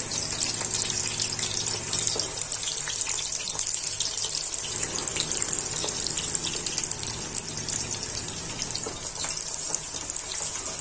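Sliced onions deep-frying in hot oil in a kadai, just added once the oil was hot: a steady sizzling hiss with constant fine crackling.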